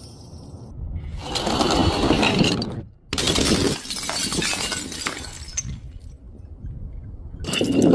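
Glass bottles shattering and crunching in three long bursts of dense breaking and clinking, split by short quiet gaps.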